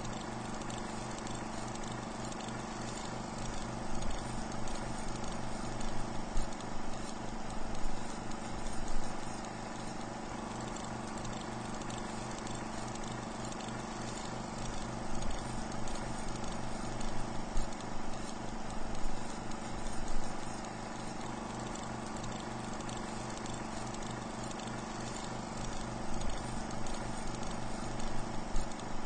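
Film projector running: a steady hum with a fast, even mechanical flutter and rougher, louder stretches now and then.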